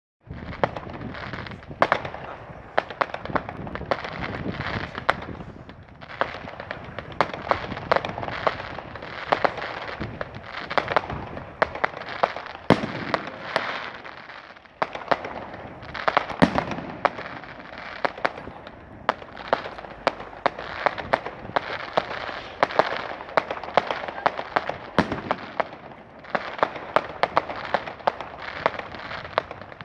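Fireworks display: a continuous crackle of rapid bangs and pops, with a few louder, deeper booms standing out.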